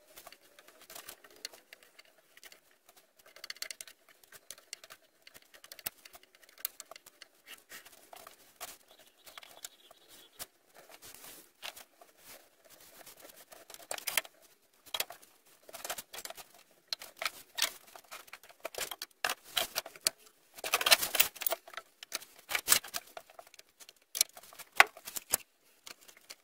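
Hand-work noises on a workbench: irregular clicks, taps and scuffs as PVA glue is squeezed from a bottle onto a chipboard base and a carpet square is slid down over a wooden post and pressed into place, with a louder stretch of scraping about 21 seconds in.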